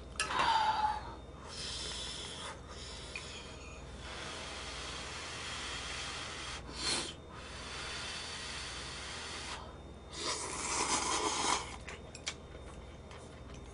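A person slurping ramen noodles and broth, in several noisy slurps with short pauses between.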